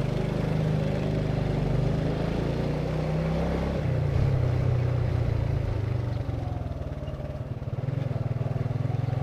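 Small motorcycle engine running while riding along a street, its note changing about four seconds in as the speed changes.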